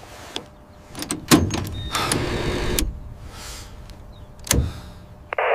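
Mechanical clunks and clicks of cockpit controls, with two heavier knocks and a short whir in between, then a loud hiss near the end.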